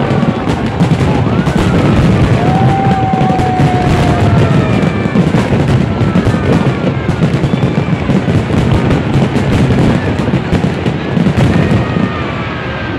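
Large aerial fireworks display: a dense, continuous barrage of shell bursts, bangs and crackling, easing slightly near the end.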